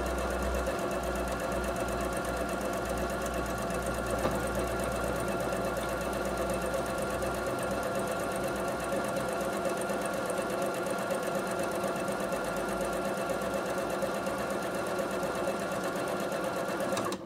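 Bernette B37 computerized sewing machine running steadily on its own under the start-stop button, stitching an automatic one-step buttonhole. It stops abruptly near the end as the buttonhole is finished.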